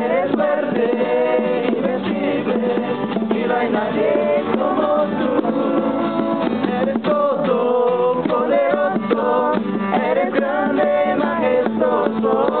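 Voices singing a worship song to guitar accompaniment, the recording dull and muffled with no treble.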